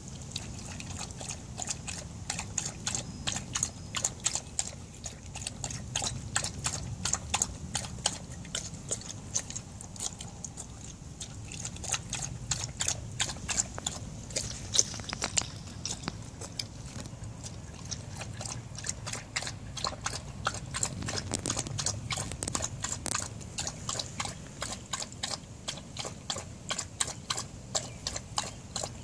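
Border collie lapping water from a bowl in a quick, steady rhythm of wet laps, a few a second.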